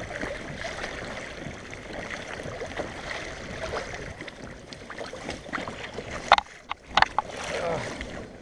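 Sea water lapping and splashing against a kayak's hull, with wind on the microphone, and two sharp knocks, one a little after six seconds and one at about seven.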